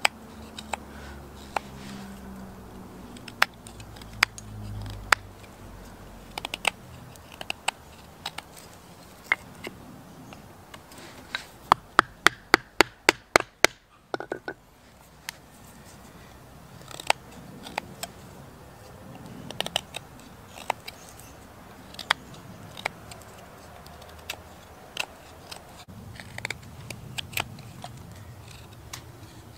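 A LionSTEEL fixed-blade knife whittling a wooden stick, making scattered sharp clicks and scrapes as shavings are cut. Near the middle comes a quick run of about a dozen sharp clicks, about six a second.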